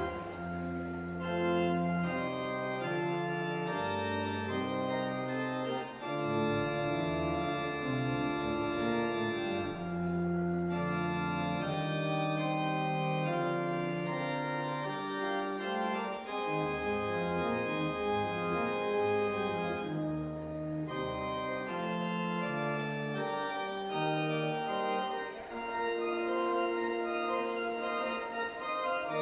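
Church pipe organ playing a postlude: slow, held chords over a low pedal bass that drops out about halfway through.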